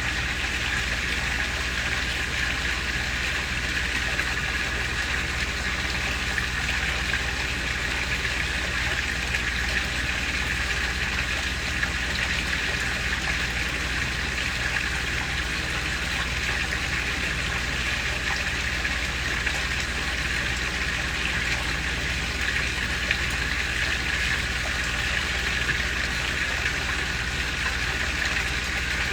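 Small garden pond waterfall pouring and splashing steadily into a koi pond, with a low steady hum underneath.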